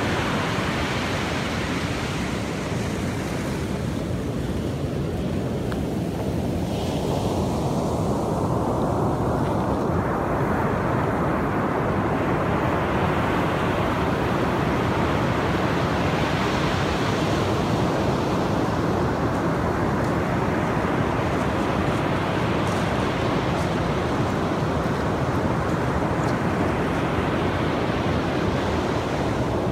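Pacific surf breaking and washing up a sandy beach, a continuous rush that swells and ebbs over several seconds as each set of waves comes in, with wind buffeting the microphone.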